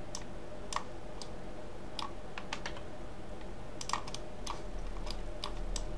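Computer keyboard keys and mouse buttons clicking now and then, about a dozen irregular clicks, over a faint steady electrical hum.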